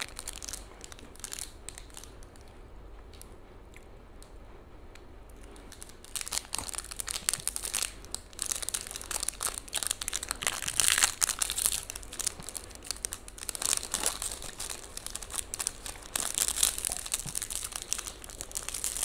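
Crinkly wrapper of a Hanuta hazelnut wafer being handled and torn open by hand: faint rustles for the first few seconds, then dense crinkling from about six seconds in, loudest in bursts near the middle and toward the end.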